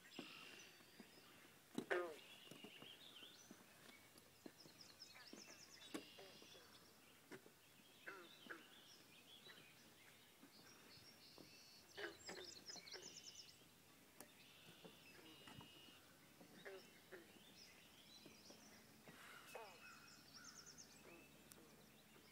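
Faint birds calling and singing over a marsh: overlapping chirps and rapid high trills, with one louder sound about two seconds in.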